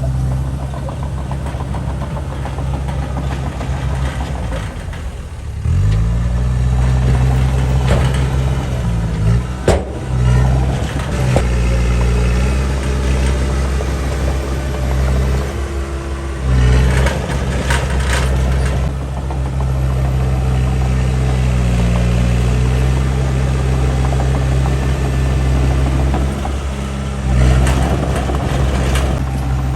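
Heavy diesel engine of earthmoving machinery running under load, its pitch rising and falling as the throttle changes and getting louder about six seconds in. A few sharp metallic knocks come through around ten seconds in and again a little past the middle.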